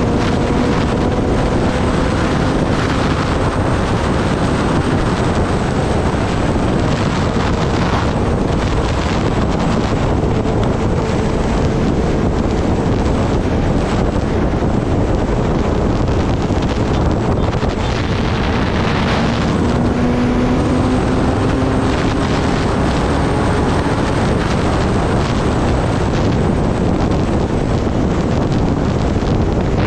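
Heavy wind buffeting the microphone on a Kawasaki Ninja ZX-10R riding at speed. Under it, the inline-four engine's note is faintly heard, now and then rising slowly in pitch.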